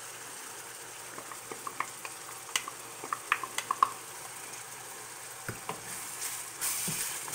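Ground beef frying in a skillet with a steady sizzle, while a wooden spoon stirs in tomato sauce, tapping and scraping the pan in a scatter of sharp clicks. The sizzle grows louder near the end.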